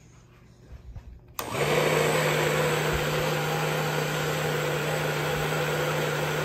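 Personal blender switching on about a second and a half in and running steadily at one speed, its motor humming under the churn of a milkshake of milk, ice cream and cereal being blended.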